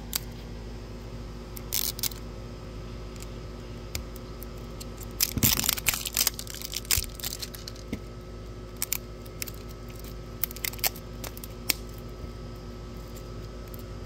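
Plastic mystery-toy capsule handled and its sticker seals peeled open: scattered clicks and crinkles of plastic and tape, with a burst of tearing and crackling about five to six seconds in.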